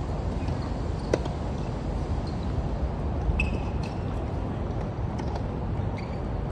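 Tennis balls struck by rackets during a forehand rally on a hard court: a few short, sharp pops, the loudest about a second in, over a steady low background rumble.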